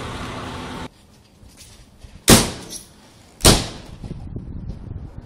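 Steady background noise cuts off suddenly about a second in. It is followed by two loud slams a little over a second apart, each dying away briefly, then low rustling.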